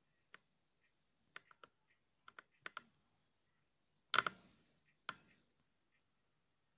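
Faint scattered clicks and taps of a phone being touched and handled, with a louder knock about four seconds in and another about a second later.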